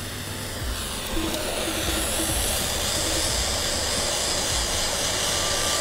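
Handheld butane micro torch burning with a steady hiss, swelling about a second in, as its flame heats shrink tubing over a soldered wire joint.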